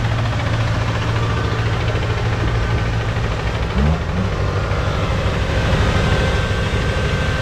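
Kubota combine harvester's diesel engine running steadily under load as the tracked machine climbs a steep bank.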